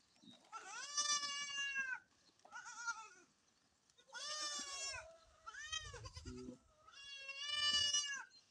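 Goats bleating: about five calls, three long loud bleats a few seconds apart with shorter ones between.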